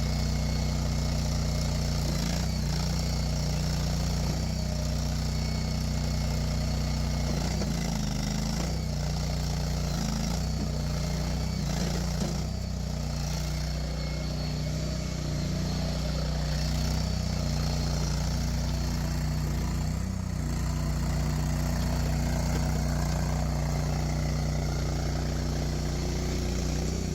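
The Honda GX690 22 hp V-twin gas engine of a Stag TL322 tracked mini skid steer, running steadily at a nearly constant speed.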